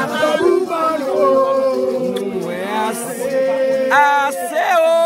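Men's voices singing a Haitian vodou chant unaccompanied, several voices together. About four seconds in a loud rising cry breaks out and becomes a long held note.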